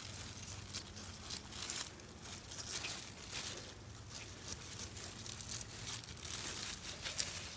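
A small knife slicing and scraping inside a squash vine's split stem, a scattered string of short crackling, tearing sounds from the fibrous plant tissue as the stem is cut open to dig out a squash vine borer larva.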